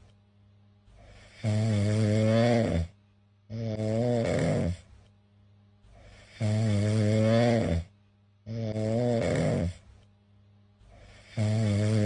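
Domestic cat snoring in its sleep. About five pitched snores, each a little over a second long, come in close pairs, with a longer pause between each pair.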